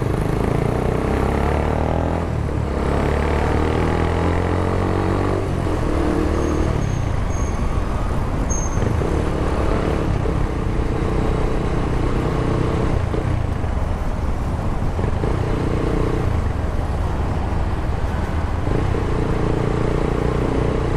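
Sport motorcycle's engine running under way, its pitch rising and falling with throttle and gear changes, over a steady rush of wind and road noise.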